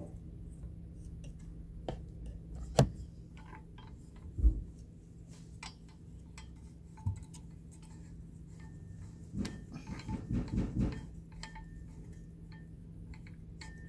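Clicks and knocks of a plastic microphone shock mount being handled and screwed onto a desk stand, with a sharp click about three seconds in, a low thump a second or two later, and a quick run of knocks around ten seconds in.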